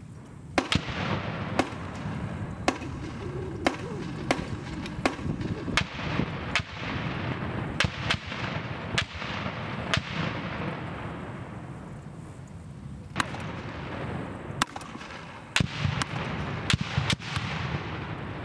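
40mm grenades bursting on a live-fire range: a long string of sharp bangs, each with an echoing tail. They come about once a second at first, then several in quick succession near the end.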